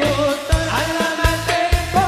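Male voice singing a sholawat melody with wavering, ornamented pitch, over a dangdut koplo backing with a steady, quick drum beat.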